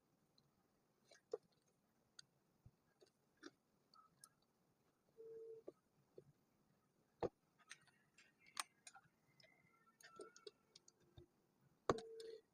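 Scattered small clicks and taps of plastic building bricks being handled and snapped together, with a brief low steady tone twice, about five seconds in and near the end.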